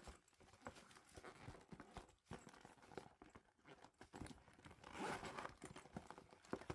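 Faint rustling, scratching and small clicks of packaging and merchandise being handled and unwrapped, busiest about five seconds in.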